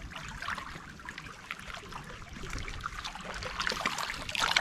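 Lake water trickling and lapping at the shoreline, a soft, steady wash of small splashes, with a brief louder rush near the end.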